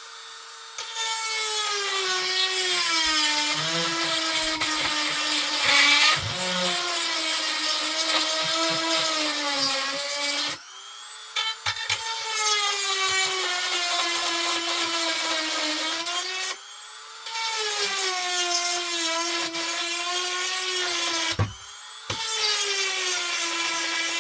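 Handheld electric drill-type power tool enlarging a mounting hole in a metal felling dog. The motor's pitch drops under load and climbs back as pressure eases. It is briefly lighter and quieter, spinning free, three times: a little after ten seconds, about sixteen seconds in, and near the end.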